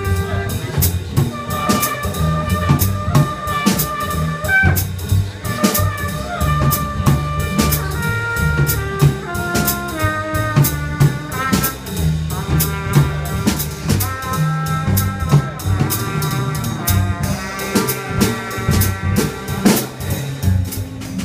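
Live jazz combo playing: a trumpet carries the melody over a plucked upright double bass and a drum kit keeping time on drums and cymbals.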